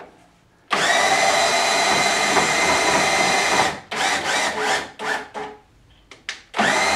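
Cordless drill spinning a CNC router's lead screw, driving the carriage along the gantry rails. It runs steadily for about three seconds, gives a few short trigger bursts, pauses, then starts running again near the end.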